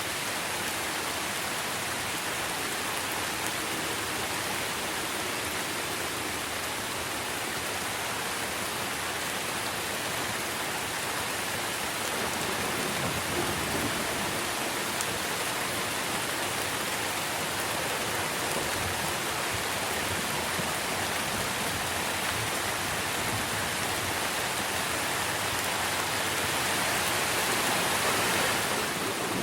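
Steady rain falling on tree leaves, a dense even patter that swells a little near the end.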